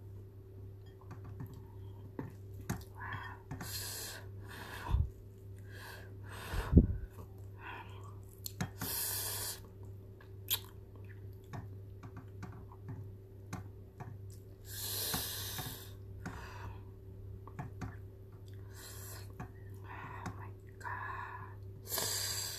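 Close-miked eating of a barbecue chicken wing with rice: chewing and wet mouth sounds with small clicks from chopsticks in the bowl, several short hissy rushes, and two dull low thumps about five and seven seconds in.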